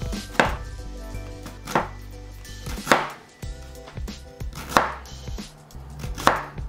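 Chef's knife thinly slicing a white cabbage on a plastic chopping board, about five cuts spaced roughly a second apart.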